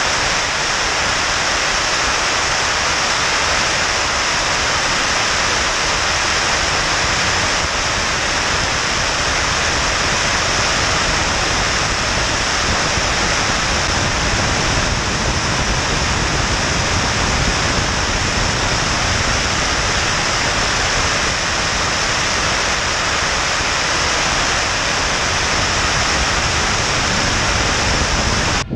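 A model jet's factory turbojet of 8 kg thrust running at steady power in flight, heard from a camera mounted on the airframe just ahead of the exhaust: a loud, even rushing noise with a strong high hiss and airflow over the microphone.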